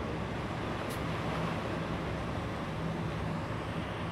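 Steady low engine rumble and hum from a chemical tanker passing close by under way.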